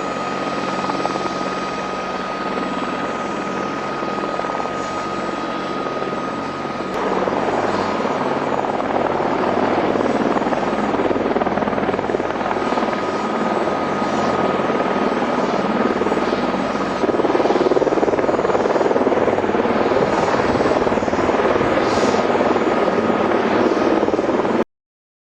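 AH-64 Apache helicopter running: steady rotor and turbine noise with a constant high whine. It steps up louder about seven seconds in and again about seventeen seconds in.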